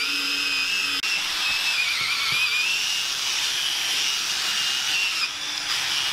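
Handheld power drill spinning a foam polishing pad on a plastic headlight lens: a steady high whine whose pitch wavers slightly as the pad is worked across the lens.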